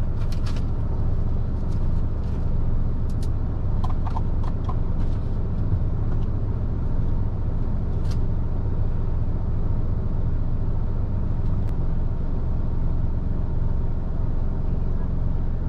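Heavy truck's diesel engine idling steadily, heard inside the cab, with a few light clicks.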